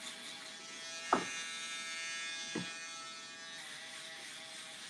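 Electric shaver with an all-metal housing running with a steady buzz as it shaves down to skin at the bottom of a fade. Two brief knocks come about one and two and a half seconds in.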